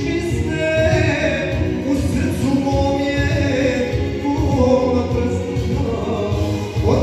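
A man singing a Serbian folk-pop song into a handheld microphone, with long, bending sung notes over a backing track with a steady beat.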